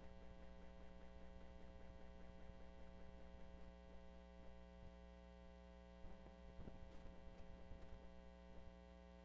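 Near silence with a steady electrical mains hum, and a few faint clicks about six to seven seconds in.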